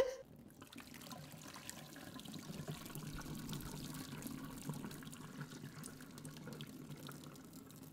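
Hot cooking water pouring off a pot of ramen through a clip-on silicone pot strainer, running steadily into a stainless steel sink.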